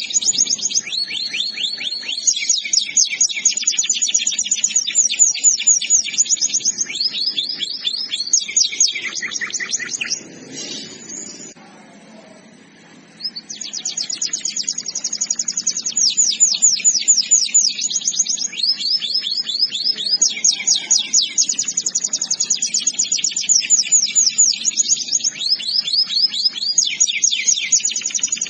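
Domestic canary singing: long runs of rapid rolled trills, one phrase after another at different pitches, with a break of about three seconds near the middle before the song resumes.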